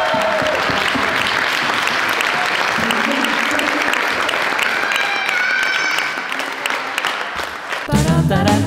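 Crowd applauding, with voices calling out over the clapping. About eight seconds in, outro music starts with a heavy low beat.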